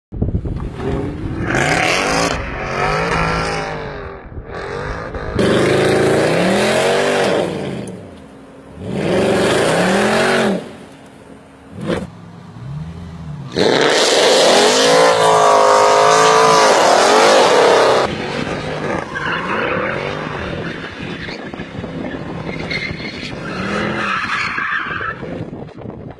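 Mercedes C63 AMG engine and exhaust revving hard under acceleration, in several loud bursts whose pitch climbs and drops. The sound changes abruptly several times between segments.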